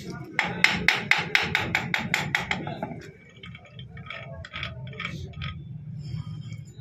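Hammer striking metal, about four to five even blows a second for some two and a half seconds, followed by lighter scattered taps and clinks of metal parts, during gearbox fabrication.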